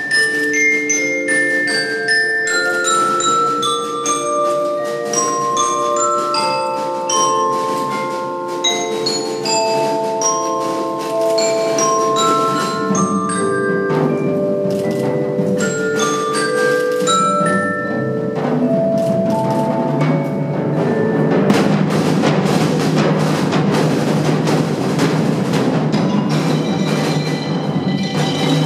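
Percussion ensemble playing: marimba and glockenspiel notes in running melodic lines, with drums and other percussion filling in more densely in the second half.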